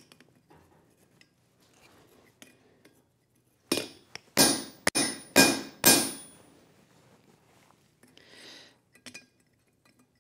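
Hammer blows driving a slot punch into a red-hot steel bar on an anvil: five sharp strikes in about two seconds, starting a little under four seconds in.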